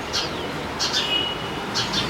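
Small birds chirping: short, high chirps and a few falling calls over a steady rushing background noise.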